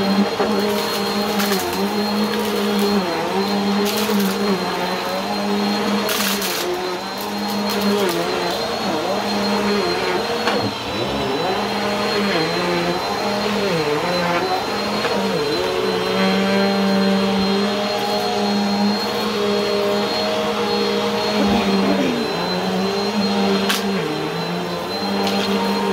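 Bissell Helix upright vacuum cleaner running steadily over carpet with a high whine, its motor pitch dipping briefly now and then as the head is worked over the rug. A few sharp crackles of debris being sucked up, the loudest near the end.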